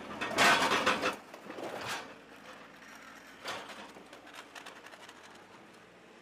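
Backhoe loader's front bucket and the torn metal debris it carries clattering and scraping, loudest for about a second near the start, with shorter clatters about two and three and a half seconds in, then a faint rattle that fades.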